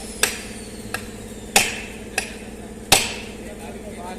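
Hammer driving a chisel into the seam of a truck's rear differential (crown) housing to split it loose: five sharp metal blows with a short ring, the third and fifth the loudest. A steady hum runs underneath.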